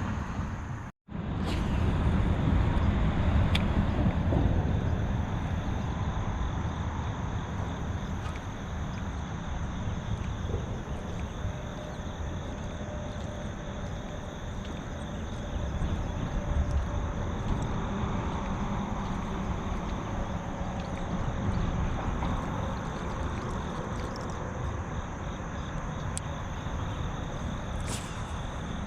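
Steady rushing noise of river rapids with a low rumble of distant highway traffic. The sound drops out for a split second about a second in, where the recording cuts.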